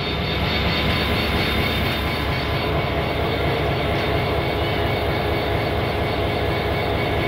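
Pakistan Railways HGMU30 3,000-horsepower diesel-electric locomotive idling steadily with a low throb, heard close beside the engine.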